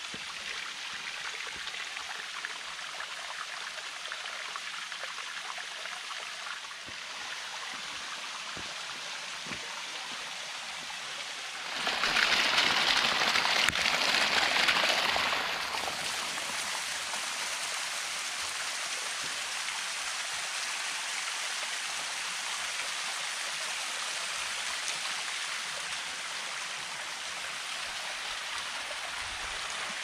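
Small waterfall trickling and splashing down a rock face into a shallow stream: a steady rush of water. It grows markedly louder for about four seconds near the middle, then settles back.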